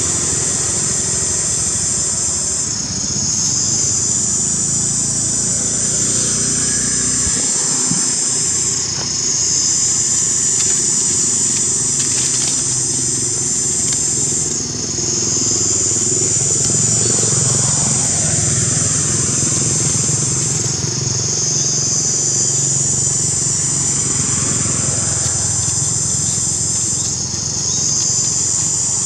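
Insect chorus: a loud, high, steady buzz that dips and swells again about every six seconds. Under it runs a low engine hum of motor traffic, with a few slowly falling glides as vehicles pass.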